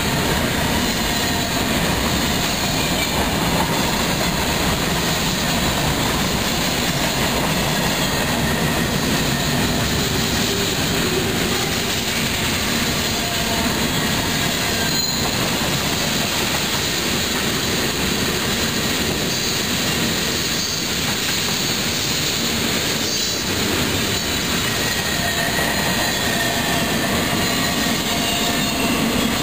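Freight cars of a mixed freight train rolling past close by: a steady rumble and rattle of steel wheels on rail, with faint thin wheel squeal and a few sharper knocks.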